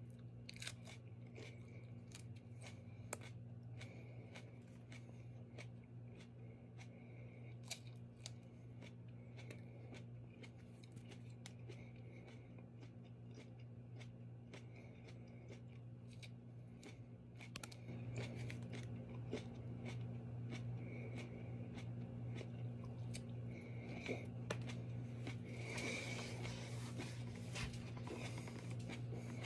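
A man chewing fresh hot pepper pods: quiet crunching and sharp mouth clicks, growing louder and fuller in the second half, over a steady low hum.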